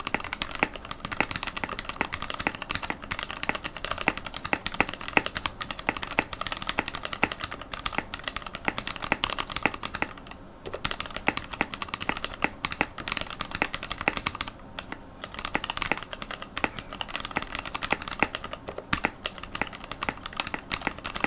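Fast, continuous typing on a GK64 mechanical keyboard with TTC Orange switches on Panda stems, 72 g springs, a carbon fibre plate, a wooden case and PBT keycaps, briefly pausing about 10 and 15 seconds in. The keystrokes sound scratchy, which the uploader puts down to spray-on Super Lube grease in the lower switch housings.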